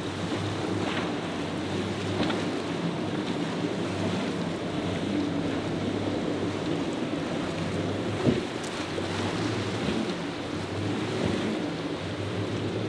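Outboard engines of a center-console boat running hard through rough waves, mixed with the rush of water and spray and wind buffeting the microphone. There is one sharp knock about eight seconds in.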